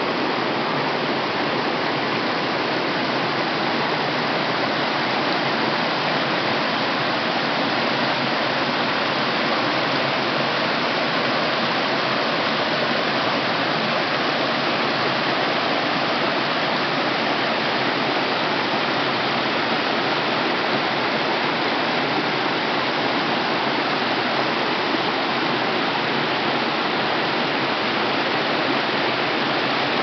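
Small mountain stream cascading over rocks in little falls: a steady rush of falling water.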